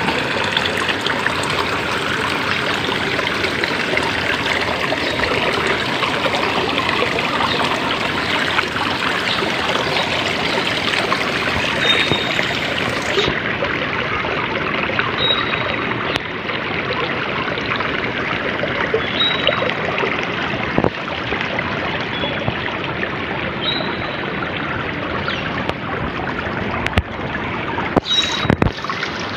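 Water trickling and splashing steadily into a swimming pool, with a short high chirp every few seconds and a few knocks near the end.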